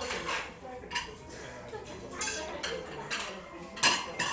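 Plates and cutlery clinking on a dinner table, a few sharp clinks with the loudest near the end, over a low murmur of voices.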